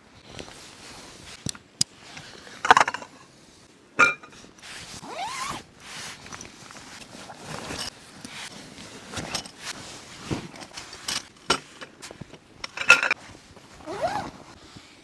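Canvas tent bag and stuff sacks being unpacked by hand: the canvas rustles and scrapes, a zipper runs, and a few sharp clicks and clinks come from the strap buckles.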